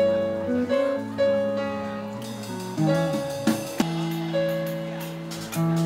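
Clean electric guitar noodling jazz chords and lines: notes held and ringing over one another, the chord changing every second or so, with a few sharply picked notes a little past halfway.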